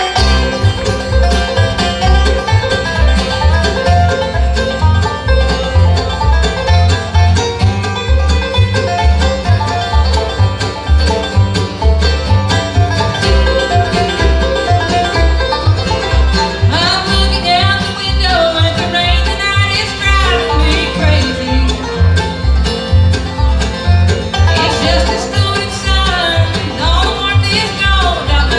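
Bluegrass band playing, with banjo and guitar to the fore over a steady bass beat; a melody line slides in about halfway through and again near the end.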